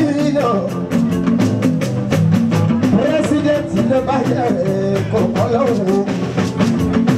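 Live fuji music: a male lead singer sings a wavering melody into a microphone over a band of fast, dense percussion and a stepping bass line.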